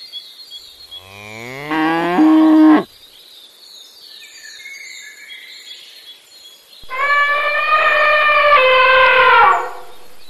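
Cartoon bull mooing sound effects: a loud moo that rises steeply in pitch about a second in, then a second, longer and higher-pitched call about seven seconds in that drops lower before it stops. Faint birdsong chirps throughout.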